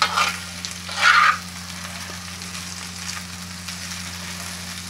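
Steel spatula scraping and tossing diced boiled potatoes across a hot iron tawa, two loud strokes in the first second and a half, over the steady faint sizzle of the potatoes frying in oil.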